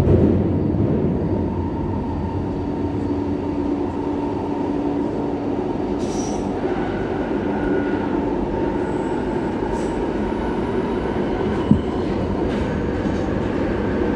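London Underground 1996 Stock train running between stations with a steady low rumble. A steady hum comes in for a few seconds, there are brief high wheel squeals about halfway through, and there is a single short knock near the end.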